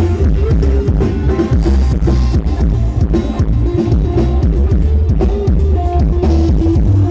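Thai rot hae sound truck's loudspeaker system playing loud music with heavy bass and a steady drum beat, during a sound check.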